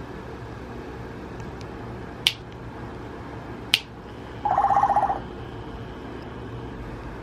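African grey parrot making two sharp beak or tongue clicks about a second and a half apart, then a short buzzing rattle lasting under a second.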